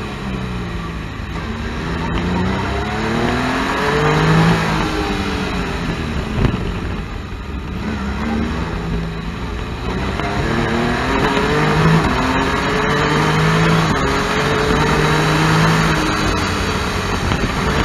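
Can-Am Spyder F3-S's Rotax 1330 three-cylinder engine under hard acceleration, revs rising and dropping with each gear change, easing off about halfway through and then climbing again, with wind rushing over the microphone.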